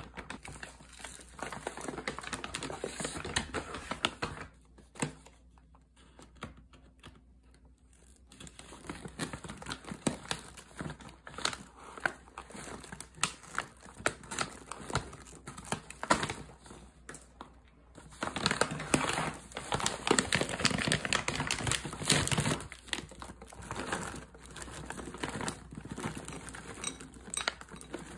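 Plastic food bags crinkling and rustling as they are handled and opened: a granola pouch, then a bag of frozen wild blueberries. There is a quieter stretch a few seconds in.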